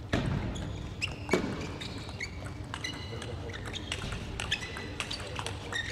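Table tennis rally: the ball clicks off rackets and table again and again, with short high squeaks of players' shoes on the court floor.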